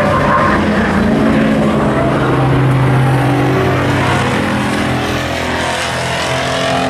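Hobby stock race car engines running at speed on the track, a loud steady drone of several cars that eases slightly about five to six seconds in.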